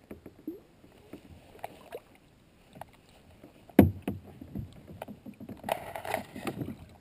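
Water splashing and knocking around a kayak as a hooked fish thrashes at the surface beside the boat, with scattered small splashes, one sharp loud splash about four seconds in and a busier stretch of splashing near the end.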